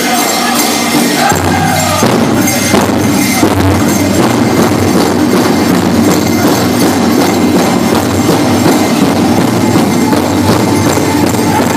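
Powwow drum song: a big drum beaten in a steady rhythm with singers, and the jingling of dancers' bells over it.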